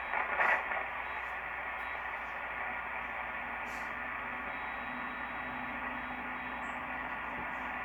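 SDR receiver tuned to the 11-meter CB band in sideband mode, giving out a steady band-limited hiss. A brief garbled burst comes about half a second in, and a faint low tone runs through the second half.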